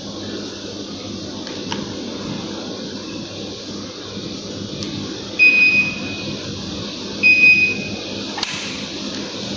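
Daikin central air conditioner running, its air blowing as a steady hiss, with two short high beeps under two seconds apart and a sharp click near the end.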